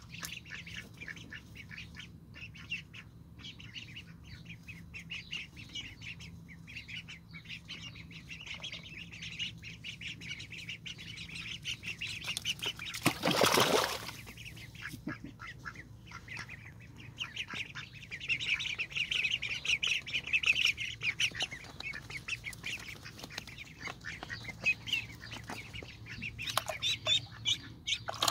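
Indian Runner ducklings peeping in a steady stream of rapid, high calls. A loud burst of noise lasting about a second breaks in just past halfway.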